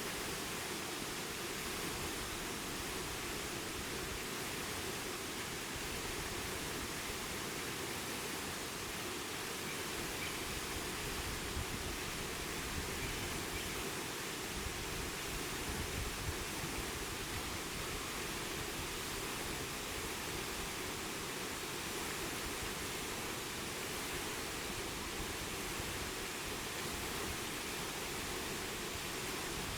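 Steady rush of falling water from a waterfall, an even noise that holds without change.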